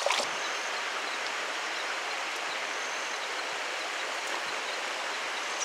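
Steady, even rush of flowing river water, with a few faint short high peeps over it.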